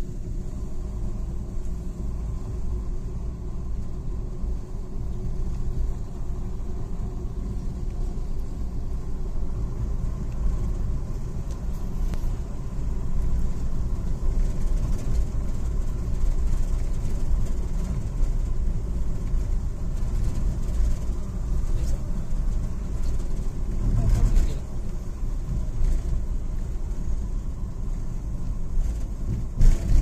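Steady low rumble of a vehicle driving along a road, its engine and road noise running continuously, with brief louder swells twice in the later part.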